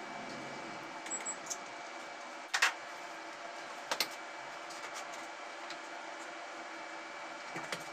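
Knife cutting a guava on a plate: a few sharp clicks as the blade meets the plate, the clearest about two and a half and four seconds in, over a steady low hum.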